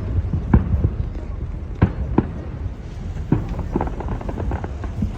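Aerial fireworks shells bursting in the distance, a string of sharp bangs about a second apart, then a quick cluster of smaller pops and crackles. Crowd voices run underneath.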